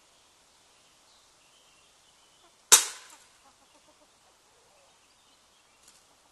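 Kania spring-powered kill trap snapping shut: one sharp, loud crack about three seconds in that rings out briefly. A faint click follows near the end.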